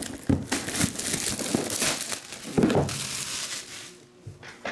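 Plastic shrink wrap crinkling and tearing as it is pulled off a sealed trading-card box, dying away after about three and a half seconds.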